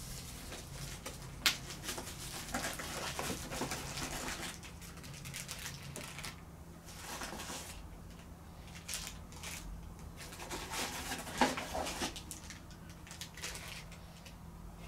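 Rustling and crinkling of plastic bags and a cardboard box as camera accessories are lifted out and handled. There is a sharp tap about a second and a half in, and a louder one about eleven seconds in.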